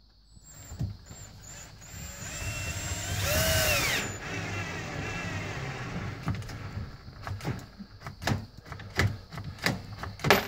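Ryobi One+ cordless drill driving a screw through a dishwasher's mounting tab into the underside of the countertop, its motor speeding up and slowing down, loudest a few seconds in. Near the end comes a run of sharp clicks.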